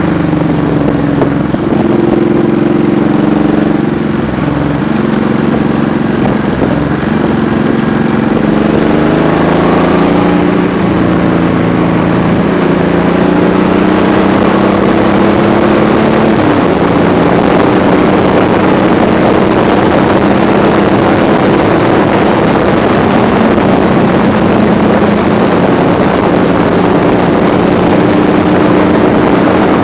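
Honda VTX cruiser's V-twin engine running under way, its pitch shifting several times in the first half with throttle and gear changes, then holding steady. Heavy wind rush on the microphone builds after about ten seconds.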